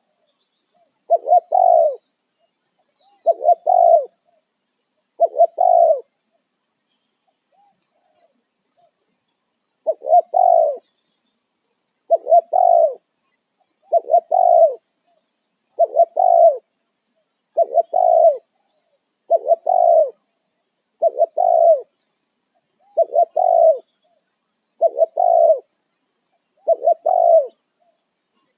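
Spotted dove (tekukur) cooing its repeated call, one short phrase about every two seconds, with a pause of a few seconds early on.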